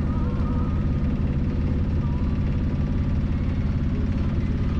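A boat's engine running steadily with a fast, even throb.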